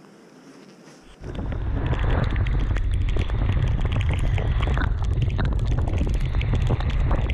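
Heavy wind buffeting on the microphone of a camera on a motorcycle riding at speed in bad weather. It cuts in suddenly about a second in and stays loud and rumbling, with a constant crackle.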